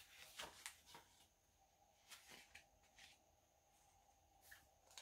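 Near silence with a few faint, brief rustles of paper as the pages of a picture book are turned.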